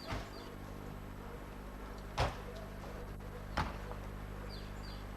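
Three dull thumps over a steady low hum, the loudest about two seconds in, with a few faint short bird chirps at the start and near the end.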